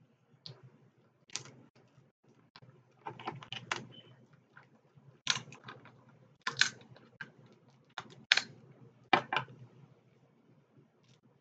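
Shells of boiled seafood being cracked and picked apart by hand, with mouth sounds of eating: a string of sharp crackly snaps in short clusters.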